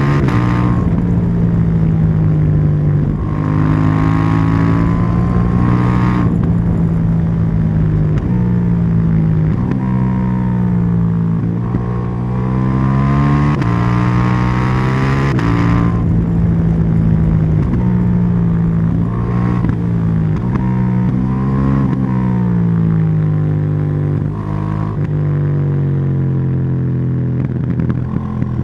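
KTM 790 Duke's parallel-twin engine and exhaust under way, the revs climbing, dropping sharply and climbing again over and over as it pulls through the gears, with slower falls where the throttle eases off.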